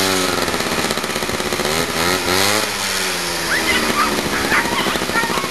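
Lure-coursing machine's motor reeling in the lure line, running steadily and revving up and falling back about two to three seconds in. Short high-pitched calls come in over it near the end.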